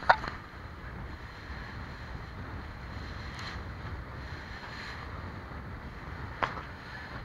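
Motorboat under way: steady low engine rumble with water rushing past the hull and wind buffeting the microphone. Two brief sharp splashes stand out, one just after the start and one about six and a half seconds in.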